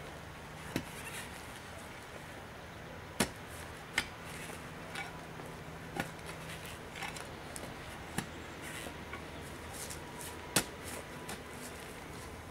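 Hand-driven under-sidewalk boring tool worked up and down by its T-handle, giving sharp knocks every second or so at an uneven pace, as the rod is driven through the soil beneath the sidewalk.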